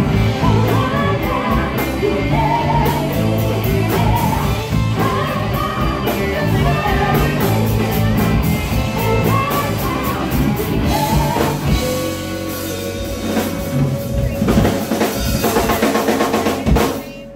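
Live rock band playing: two women singing over electric guitars, bass guitar and a drum kit. About twelve seconds in the band moves to longer held notes, and the music stops abruptly near the end.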